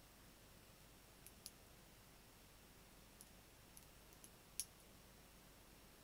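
Small neodymium magnetic balls clicking as they snap together: about six short, sharp clicks scattered over a few seconds, the loudest near the end, over faint hiss.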